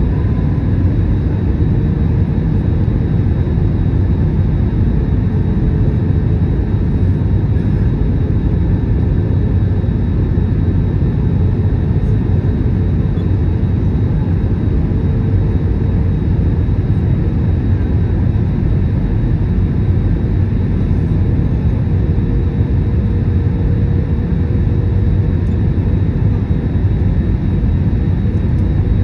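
Airbus A321 cabin noise on approach: a steady rumble of engines and airflow heard from a window seat over the wing, with a faint steady hum.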